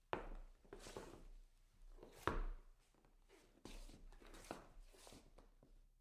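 Shoe soles scuffing on wood: about six separate scrapes, each starting sharply and trailing off, irregularly spaced, the loudest a little past two seconds in.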